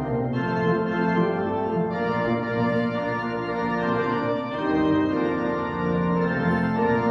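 Organ playing a hymn tune in held chords that change every second or so, the introduction before the singing starts.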